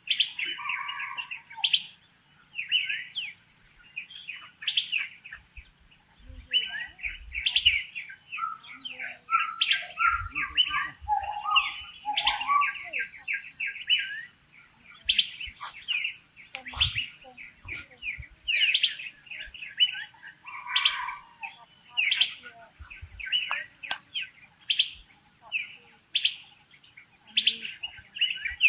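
Forest birds chirping: quick runs of short, high notes repeating throughout, with a few lower calls mixed in.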